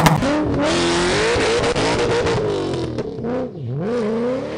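A car engine revving hard, its pitch climbing and falling, with a sharp drop about three and a half seconds in before it climbs again.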